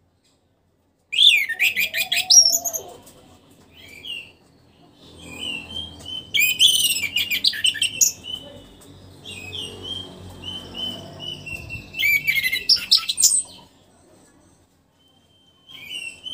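Orange-headed thrush (anis merah) song: phrases of rapid, varied, high whistled and chattering notes with pauses between them. The song starts about a second in after a silent start, and a short phrase comes again near the end.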